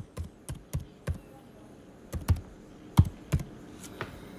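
Irregular light taps and dull knocks, about ten in all, the loudest about three seconds in, like fingertips tapping a phone close to the microphone.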